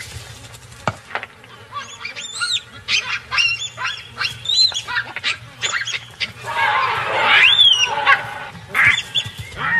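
Baboons calling in alarm: a rapid series of short, overlapping barks and screams that rise and fall in pitch, starting about two seconds in, with a longer, rougher scream around seven seconds in.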